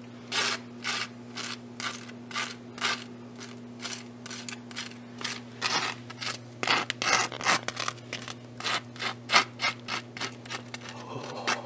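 Butter knife scraping butter across a slice of dry toast in repeated short strokes, about two a second.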